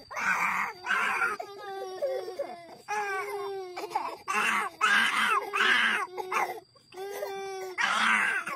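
A small girl crying hard, in repeated sobbing wails broken by short catches of breath, with a brief pause about three-quarters of the way through.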